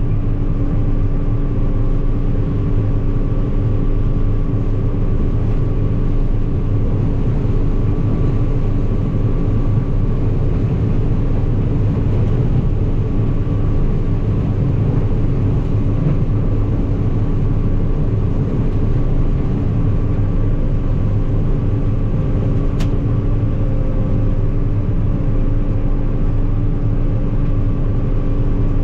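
Combine harvester running steadily: a constant engine drone with several steady whining tones above it, unchanging throughout.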